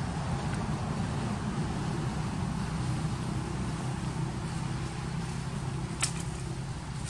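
Steady low rumble of a running motor, with a faint hum in it. One sharp click about six seconds in.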